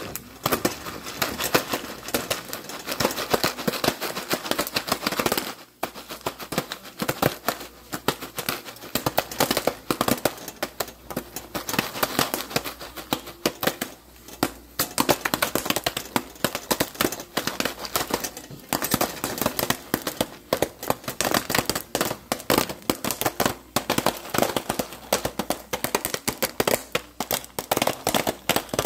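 Popcorn kernels popping rapidly inside a Jiffy Pop foil pan on an electric stove burner, a dense crackle of pops with a few brief lulls, while the foil top swells into a dome.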